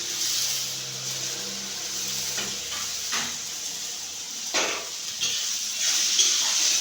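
Potato pieces sizzling as they fry in hot oil in a pan, with a spoon scraping and stirring them a few times in the second half.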